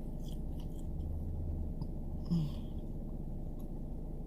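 Steady low rumble of a car's engine and road noise inside the cabin, with a short vocal sound, like a sigh or murmur, a little over two seconds in.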